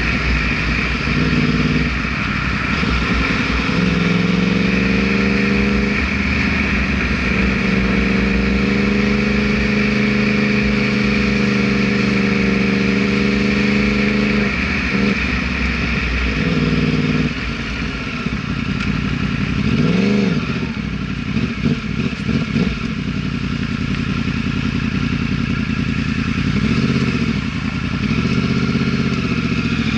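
Yamaha R1 sport bike's inline-four engine running under way, holding a steady pitch for about ten seconds before easing off, with a quick rise and fall in revs about twenty seconds in.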